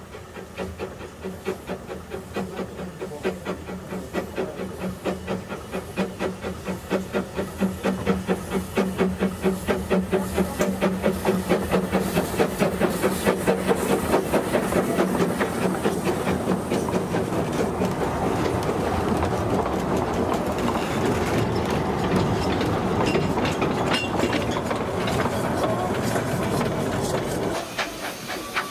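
Narrow-gauge steam locomotive working, its rhythmic exhaust beats growing louder over the first half. The beats then give way to a steadier clatter of the train running on the rails, which drops just before the end.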